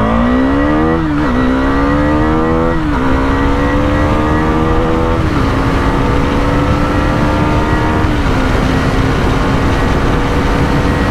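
Husqvarna Vitpilen 250's single-cylinder four-stroke engine at full throttle from a standstill, working up through the gears. The engine note climbs in pitch and drops back at four upshifts, with each climb longer and flatter in the higher gears. Wind rushes over the microphone.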